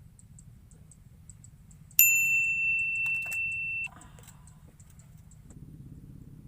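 A single steady, high-pitched electronic beep about two seconds long that cuts off sharply, over a faint low hum.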